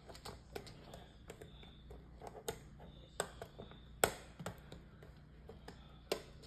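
Small plastic Lego pieces clicking and tapping as they are picked out and pressed together: scattered light clicks at irregular intervals, the sharpest about four seconds in.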